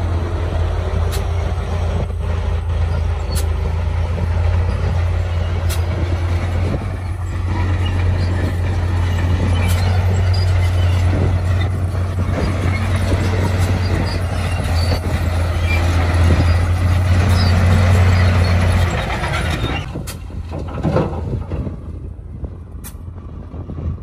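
Heavy diesel machinery running with a steady low engine drone and a few sharp clanks; the drone drops away about nineteen seconds in, leaving a quieter rumble.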